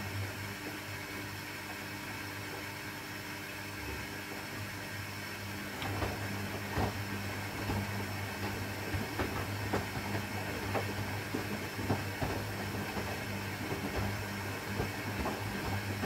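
AEG 8000 Series Lavamat washing machine running its quick 20-minute programme: a steady motor hum over a hiss, the hum stopping briefly about four seconds in and resuming two seconds later, with scattered knocks and clicks from the turning drum.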